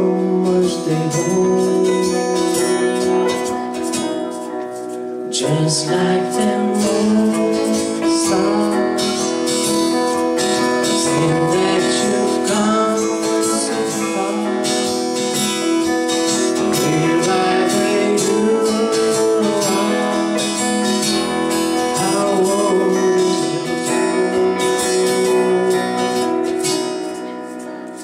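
A live song: an acoustic guitar strummed along with singing, with keyboard accompaniment.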